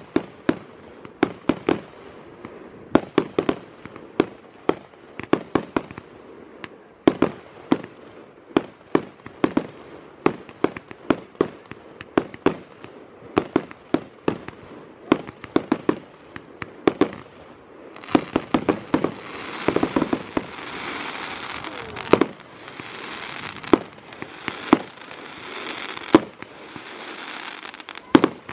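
Fireworks display: a rapid, irregular string of shell bursts going bang after bang, several a second at times. About two-thirds of the way through a dense steady hiss joins the bangs and runs on under them.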